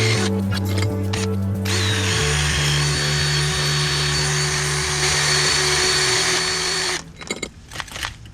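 A handheld power tool, such as a drill or impact driver, running with a few brief interruptions, then stopping about seven seconds in. Background music plays underneath.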